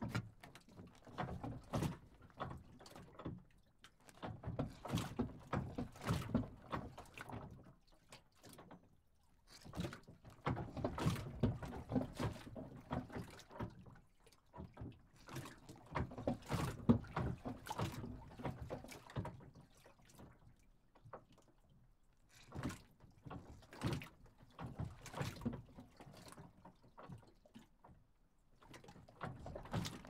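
A dock moving: bursts of knocking and creaking a few seconds long, separated by brief quieter lulls.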